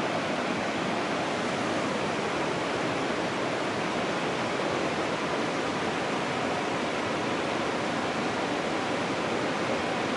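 Steady rushing of flowing water, an even hiss that does not change.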